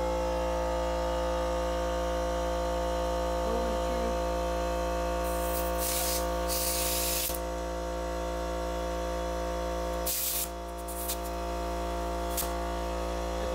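Compressed air hissing in bursts through an air chuck into a motorcycle inner tube's valve stem as the tube is inflated: one longer burst about six to seven seconds in, then shorter hisses around ten to twelve seconds in, over a steady hum.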